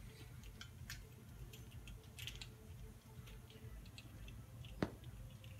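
Faint rag rubbing and small metal clicks as a piston ring compressor is wiped down by hand, with one sharper click about five seconds in.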